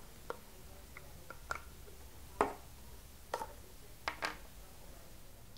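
Hard plastic clicking and knocking as a screwdriver presses the locking-ring tab in a ducted vacuum hose handle and the hose end and ring come free. There are a handful of short, sharp clicks at uneven intervals, the loudest about two and a half seconds in.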